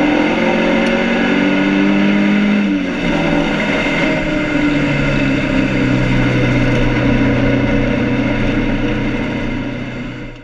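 A BMW 2002's four-cylinder race engine running under way, heard from inside the cabin. Its note changes about three seconds in and then holds steady, before the sound fades out at the very end.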